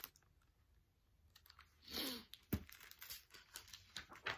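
Quiet handling of a picture book's pages: a short swish about two seconds in, then a sharp click and a run of light paper clicks and taps.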